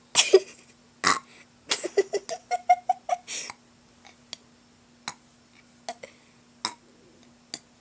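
A person burping on purpose, trying for loud ones: a burst right at the start, another about a second in, then a run of short choppy burp pulses until about three and a half seconds in. A few brief sharp sounds follow at intervals.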